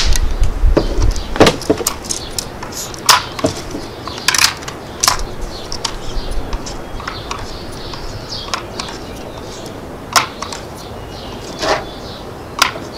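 Umarex NXG multi-pump air rifle being worked between shots: a string of sharp clicks and clacks from pumping and loading, spread unevenly a second or more apart. Wind rumbles on the microphone near the start.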